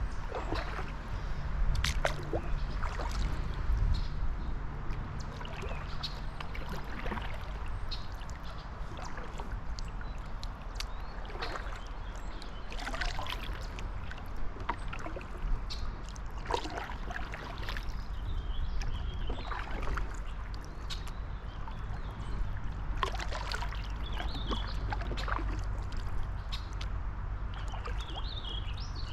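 Kayak paddling on a lake: irregular splashes and drips from the paddle blades every second or two, with water lapping against the hull, over a steady low rumble.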